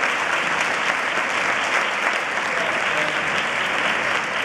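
Theatre audience applauding steadily: a dense, even mass of many hand claps.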